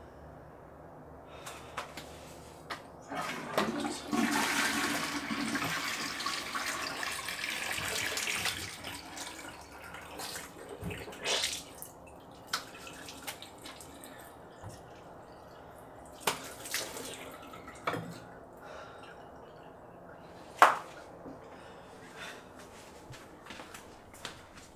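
A toilet flushes: a loud rush of water lasting about five seconds, then fading. Quieter scattered knocks and clicks follow, with water trickling from a tap and one sharp knock near the end.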